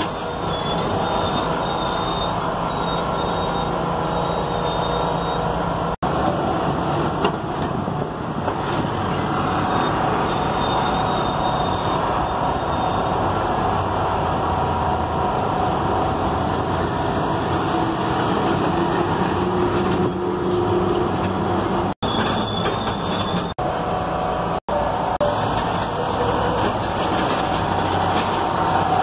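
Steady engine and road noise of a moving road vehicle, heard from inside its cabin. The sound cuts out for an instant four times: once about six seconds in, and three times close together in the second half.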